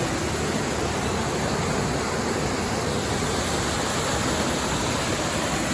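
Small waterfall on a clear stream, water rushing in a steady, even hiss.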